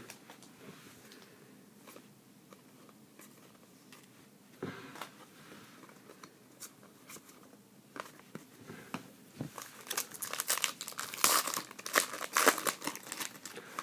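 Panini Contenders hockey card pack's foil wrapper crinkling and being torn open, dense crackling through the second half. Before that, only a few soft taps and slides as cards are flipped through by hand.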